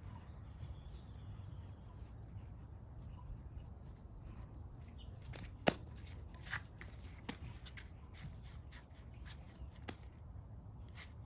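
Faint low outdoor rumble with scattered light clicks and taps from a boy practising arnis strikes with a rattan stick. The sharpest click comes a little past halfway.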